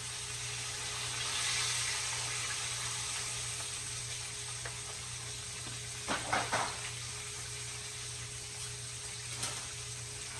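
Whole red snapper frying in a skillet of hot oil: a steady sizzle. A few brief clatters about six seconds in.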